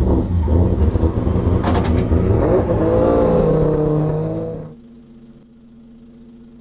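Mazda RX-7 drift car's engine revving loudly, its pitch rising and falling. Just under five seconds in it cuts to a much quieter steady hum.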